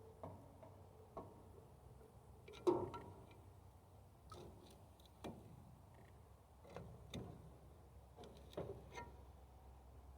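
Scattered light clicks and knocks of hand work on a sawmill's belt and pulley as the loosened, worn-out drive belt is worked off, with the loudest knock about a quarter of the way in.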